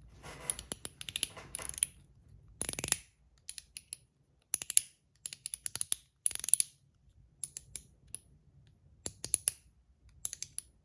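Zirconium One Pal slider fidget being worked by hand, giving clusters of sharp metallic clicks in irregular bursts as it snaps back and forth.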